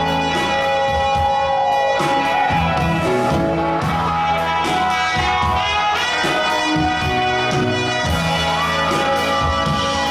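Live rock band playing: electric bass, electric guitar, keyboard and drums, with a trumpet line over them.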